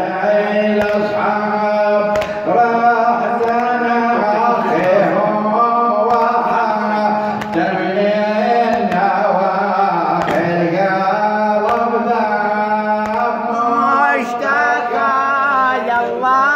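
A male radood (Shia eulogy reciter) singing a nawha lament into a microphone, in long wavering melismatic notes with vibrato, held and ornamented with hardly a break.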